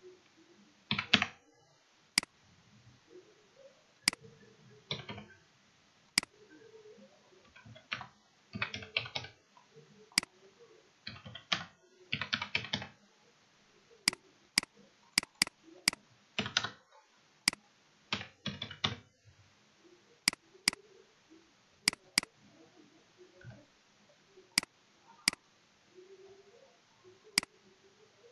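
Computer keyboard typing in several short bursts of rapid keystrokes, with single sharp clicks in between from mouse clicks.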